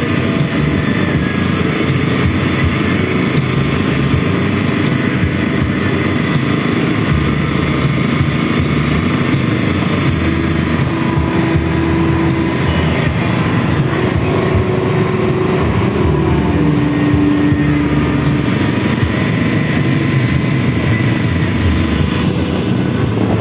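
Motorized outrigger boat (bangka) engine running steadily while under way, mixed with the rush of water splashing off the outrigger float.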